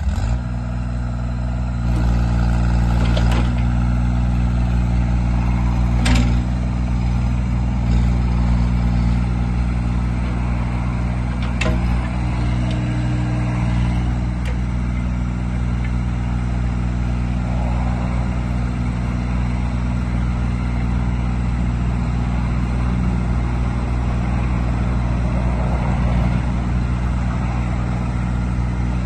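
Kubota KX121-2 mini excavator's diesel engine running steadily while the boom, arm and bucket are worked hydraulically, with a few sharp clunks about 3, 6 and 12 seconds in.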